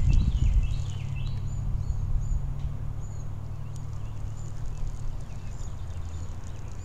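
Songbirds chirping in short, repeated high notes, thinning out after about three seconds, over a low rumble that is loudest in the first second and then settles into a steady low drone.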